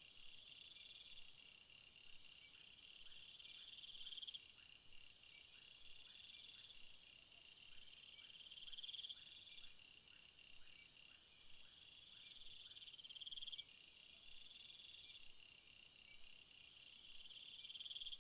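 Faint nature ambience of high trilling calls: buzzing trills that swell and cut off about every four to five seconds over a steady, faster pulsing tone, with soft falling chirps underneath.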